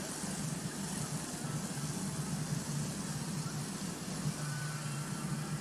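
Steady low mechanical hum, like an engine idling, with an even hiss over it.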